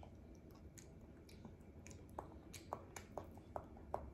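Faint mouth sounds of someone chewing soft durian flesh, with a run of small wet clicks and smacks in the second half.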